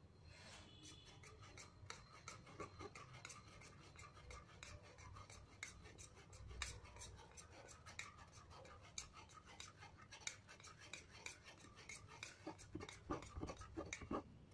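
Steel spoon scraping and pressing blended pomegranate pulp through a plastic strainer: a faint, irregular run of scrapes and clicks that comes faster and louder near the end.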